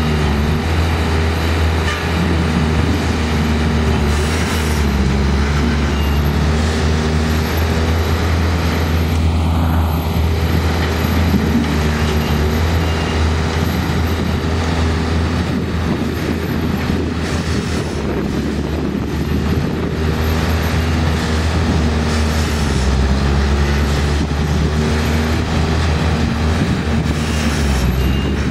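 Machine engines running continuously with a steady low hum, their pitch drifting up and down a little now and then.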